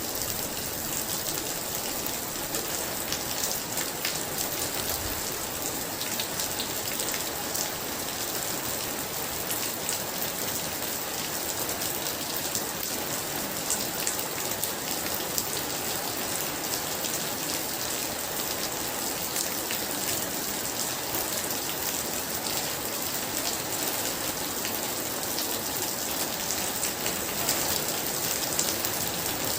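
Heavy rain falling steadily: a dense, even hiss with many sharp individual drop hits throughout.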